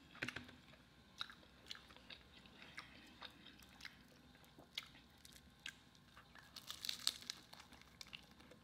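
Close-miked eating of a fried Philly cheesesteak egg roll: faint, scattered clicks and crunches of chewing, with a denser run of crackles near the end as she bites into it.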